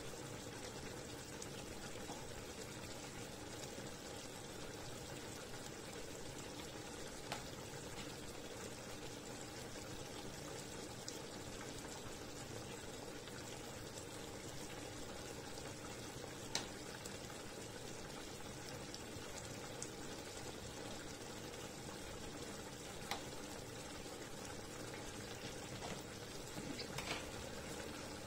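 Chicken thighs simmering in a soy, fish-sauce and lemon marinade in a frying pan, a steady bubbling as the sauce reduces, with a few sharp clicks. Near the end a spatula stirs the pan.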